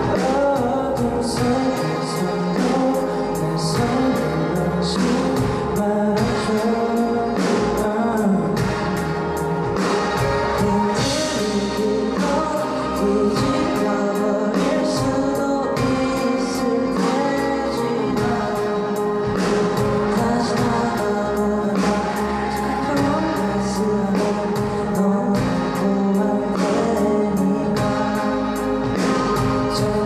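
A three-piece band of bass guitar, drums and keyboard plays a ballad, with a steady drum and cymbal beat under male singing and vocal harmonies.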